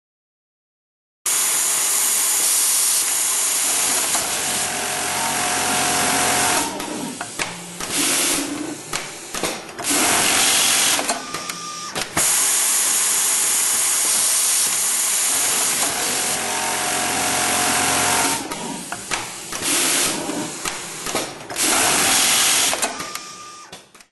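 Automated industrial sewing machine on a mop-fringe production line running and stitching. It starts suddenly about a second in, alternates between dense, loud stretches and choppier, quieter stretches, and cuts off at the end.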